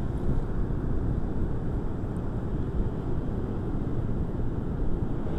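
Steady low rumble of wind buffeting the microphone, mixed with distant surf breaking on the reef edge.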